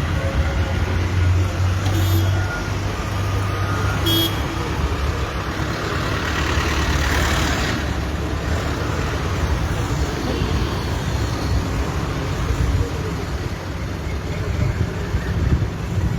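Road traffic: engines running steadily, with a vehicle passing close at about six to eight seconds in.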